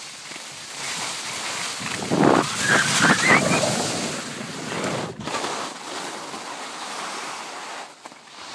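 Skis sliding and scraping over packed snow, with wind rushing on the microphone; a steady hiss that is loudest a couple of seconds in and breaks off sharply for a moment about five seconds in.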